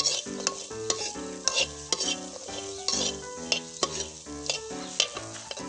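A metal spatula scrapes and clatters in a wok, stir-roasting chopped shallots, garlic and lemongrass, which sizzle lightly. Background music with a steady beat plays underneath.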